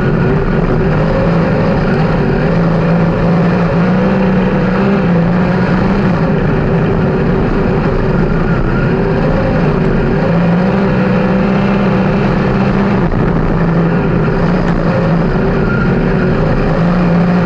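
360 sprint car V8 engines running hard around a dirt oval during a race. The loud engine note holds steady, with small rises and dips in pitch as the throttle changes.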